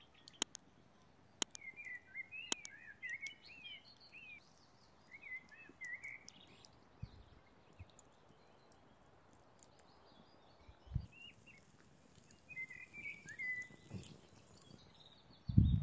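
Small birds chirping in short twittering phrases, with a few sharp clicks in the first few seconds and a dull low thump near the end.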